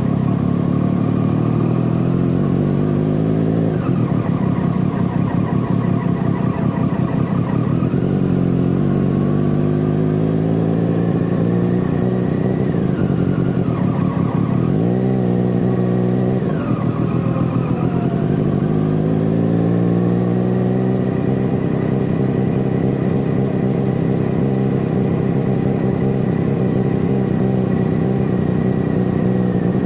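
Motorcycle engine heard from a camera mounted on the bike, accelerating hard through the gears: the pitch rises in sweep after sweep. About halfway through it falls sharply as the bike slows, then climbs again and holds a steady high note.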